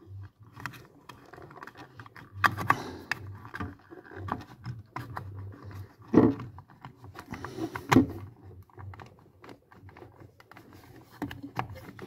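Small scraping and clicking handling noises of wires and a plastic relay cover being worked onto the freezer compressor's start relay, the loudest about two and a half, six and eight seconds in. Under them, a faint steady low hum of the compressor running on its new start relay.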